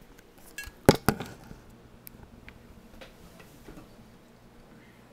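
Handling noise as a camera is set in place: a few sharp knocks about a second in, the loudest two close together, then faint small clicks and rustling over quiet room tone.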